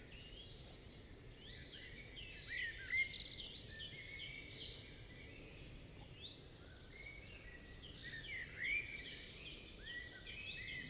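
Faint birdsong: several small birds chirping and twittering in many short overlapping calls, some sweeping up and some sweeping down in pitch, with a brief lull around the middle.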